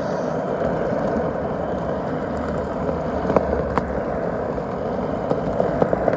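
Skateboard wheels rolling steadily over pavement, with a few sharp clicks around the middle and near the end.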